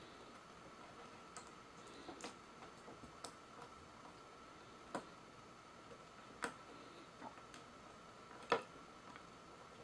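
Light clicks and taps of small plastic parts on a capsule-toy figure as its head cover is pulled off and snapped back on. The clicks are scattered and single, with the loudest about three-quarters of the way through, over a faint steady high tone.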